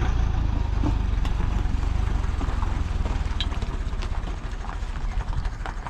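Engine of a Foton light box truck running as the truck reverses out of shallow river water onto the gravel bank, a steady low rumble that eases off near the end.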